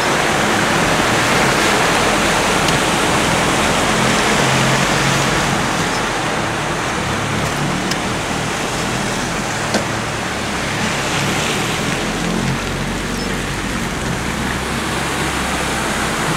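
Steady rushing noise of a car driving through a flooded street in heavy rain: tyres swishing through running floodwater over the low hum of the engine.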